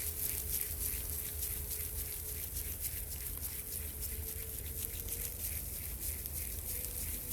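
Forest ambience: a dense, fast high-pitched ticking over a low rumble, with a faint steady tone.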